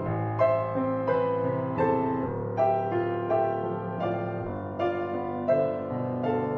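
Background piano music: a melody of struck notes, a new one every half second to a second, over held lower notes.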